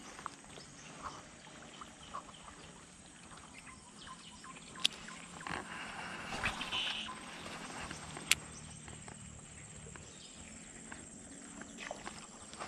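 Faint swamp ambience: a steady high insect buzz with occasional bird calls. Two sharp clicks stand out, about five and eight seconds in.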